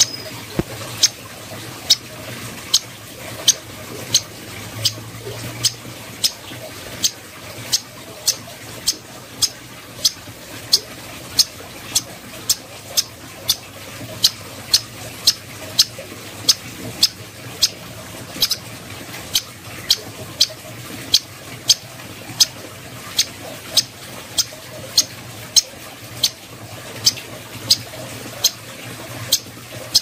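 Striated grassbird (cucak koreng) calling: a short, sharp, high note repeated at a steady pace, about three every two seconds.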